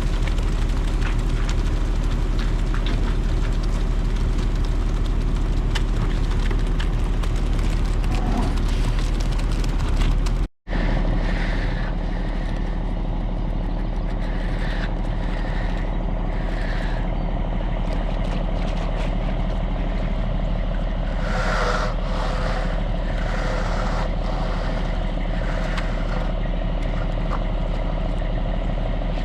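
Heavy truck engine running steadily, a continuous low rumble. About ten seconds in it cuts out abruptly and resumes with a slightly different tone.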